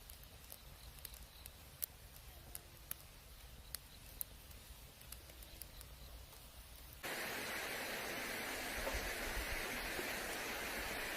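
Campfire crackling, with sharp pops and snaps from the burning wood. About seven seconds in, a louder steady hiss starts abruptly and takes over.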